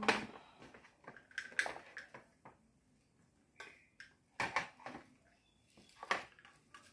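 Marker writing on the thin paper of a sky lantern: faint scattered scratches and paper rustles, a few short strokes at a time.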